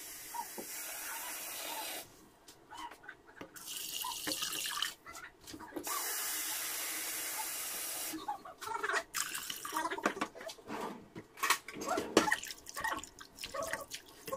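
Water pouring into a stainless steel pot in three spells, stopping and starting, then a wooden spoon stirring the liquid and knocking against the pot for the last several seconds.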